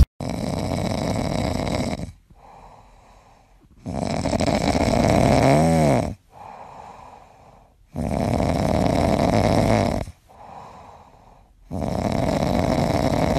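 Sleeping cat snoring: four long, loud snores about four seconds apart, with quieter breaths in between.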